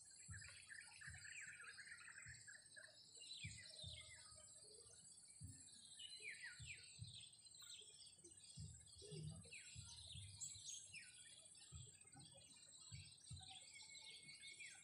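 Faint outdoor birdsong: many small birds making short, quick downward chirps throughout, over a steady high insect drone, with a few soft low thuds.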